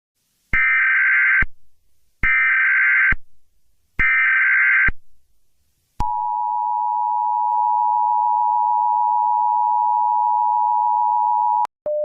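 Emergency Alert System tones: three short bursts of SAME header data, each about a second long with a gap of about a second between them, then the two-tone EAS attention signal held steady for almost six seconds and cutting off suddenly. A lower single tone starts just at the end.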